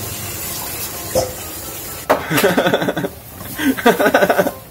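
Tteokbokki sauce simmering in a frying pan: a steady bubbling hiss. About two seconds in, louder pitched vocal sounds come in twice, each about a second long.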